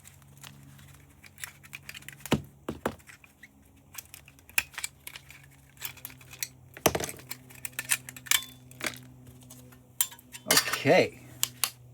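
Small screws and metal parts of a security camera being taken out and handled, with repeated light metallic clinks and taps on the work surface, over a steady low hum.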